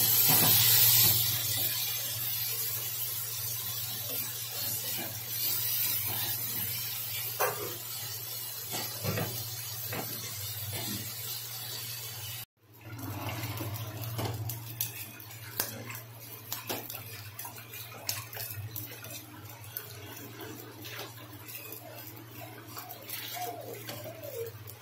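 Dried fish sizzling in hot oil in a steel pan, while a wooden spatula stirs and scrapes against the pan. The sizzle is loudest in the first couple of seconds and then settles, breaking off for a moment about halfway through.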